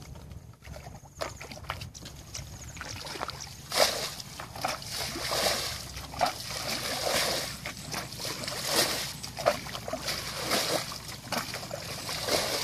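Water being bailed out of a shallow muddy ditch with a plastic bucket: repeated scooping, sloshing and splashing as each bucketful is dipped and flung out. The splashing picks up about four seconds in.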